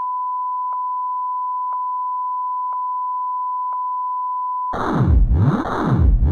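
Steady broadcast test tone, the 1 kHz reference tone that goes with colour bars, with a faint click about once a second. About four and a half seconds in it cuts off, and a louder synthesized intro effect takes over, made of repeated sweeping whooshes.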